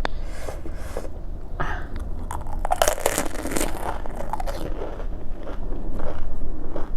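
A crisp puri filled with spiced potato being bitten and chewed, eaten dry without the pani. Crunching and crackling runs throughout and is densest and loudest about three seconds in.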